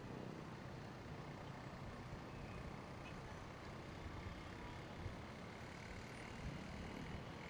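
Steady din of busy city road traffic: car and bus engines and tyres in slow, congested streets.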